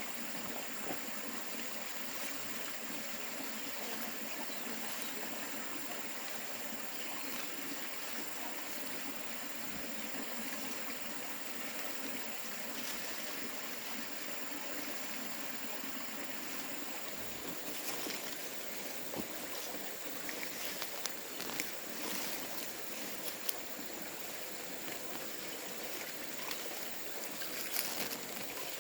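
Steady rush of flowing water with a thin, high, steady tone over it; light scattered clicks and taps join in during the last third.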